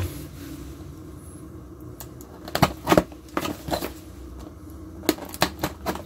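Retail box packaging being cut open with a sharp tool: a run of irregular scratchy clicks and scrapes, clustered in the second half, over a steady low hum.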